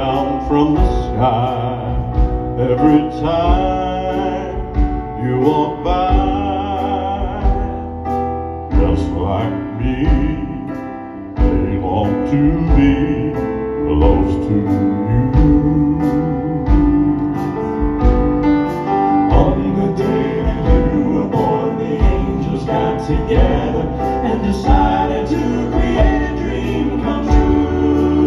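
Male gospel quartet singing in close four-part harmony over live piano, amplified through handheld microphones. The music softens about nine seconds in, then comes back fuller at around eleven seconds.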